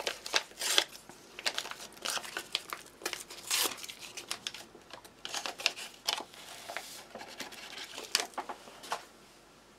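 A paper 3-in-1 tea sachet from a ration pack being handled and torn open, with irregular crinkling and tearing crackles that stop shortly before the end.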